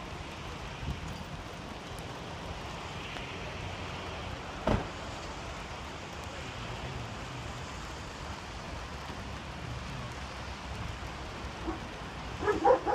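Steady outdoor vehicle and traffic noise, with a single sharp knock about five seconds in and a dog starting to bark near the end.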